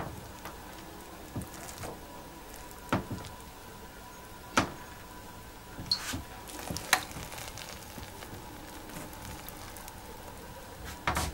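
Plastic rice paddle scooping cooked rice out of a multicooker's non-stick inner pot, giving a handful of separate sharp taps and scrapes against the pot and plates over a low steady background.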